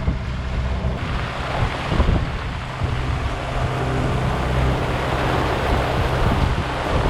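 Squall wind rushing over the sailboat and the microphone with a steady hiss of sea and spray, growing louder about a second in, over the low steady hum of the boat's engine.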